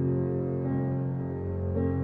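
Calm ambient background music of sustained held chords, changing twice.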